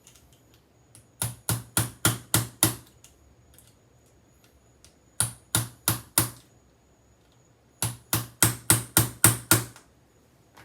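A padlock used as a hammer striking a screwdriver in quick, sharp taps, about five a second, in three bursts, driving apart the halves of a Yale Superior euro cylinder; the last burst is the longest.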